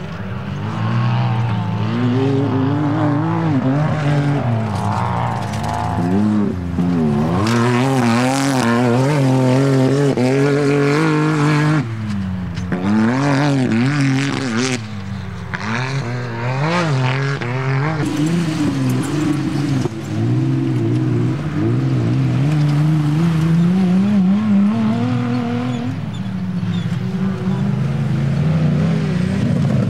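Engines of off-road race vehicles revving, their pitch rising and falling again and again as they accelerate and back off.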